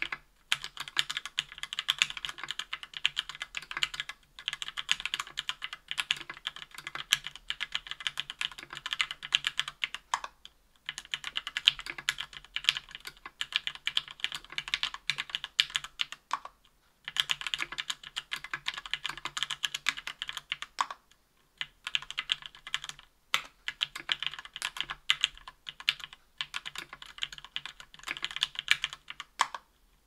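Typing on a KBDfans Tofu 60% aluminium mechanical keyboard with lubed SP-Star Nana 65 g linear switches on an aluminium plate, under GMK keycaps. A fast, continuous patter of keystrokes with brief pauses every few seconds, the longest about 16 and 21 seconds in.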